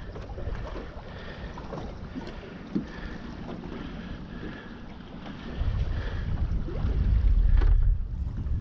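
Wind buffeting the microphone as a low rumble, heavier from about halfway through, with a few faint small knocks and clicks of handling in the boat.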